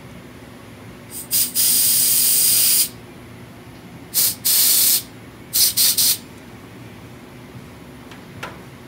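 Compressed-air blow gun hissing as it blasts air through the open valve and brass tube of a propane torch head, to clear a clogged nozzle. It comes in bursts: two short puffs, then a long blast of over a second, then two quick blasts, then three short puffs.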